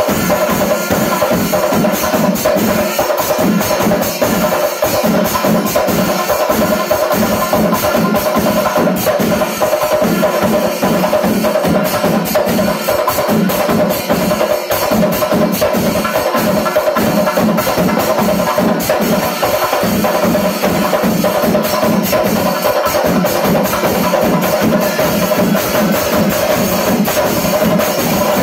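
Panchari melam, Kerala temple ensemble music: massed chenda drums and ilathalam hand cymbals playing a fast, dense, unbroken rhythm, with wind instruments holding a steady tone over it.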